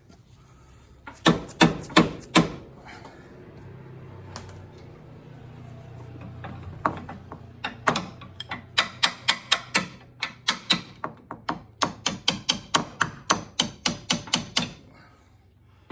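Metal hand-tool work on a car's front sway bar mounting: four sharp knocks, then a long run of regular metallic taps about three a second, as the bar is worked back to the end of its mounting slots.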